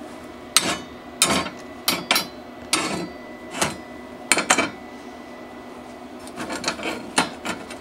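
Sharp metal clinks and knocks as a steel adapter plate and hand tools are handled and shifted on a workbench: about eight distinct knocks in the first few seconds, then lighter clatter near the end.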